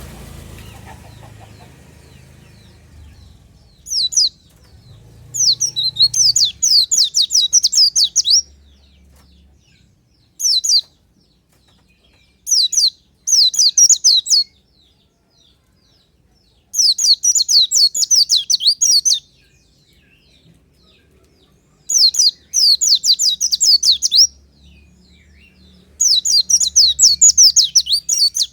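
White-eye (pleci) singing: repeated bursts of rapid, high twittering notes, each burst lasting one to three seconds with short pauses between. A low rumble fades out in the first couple of seconds.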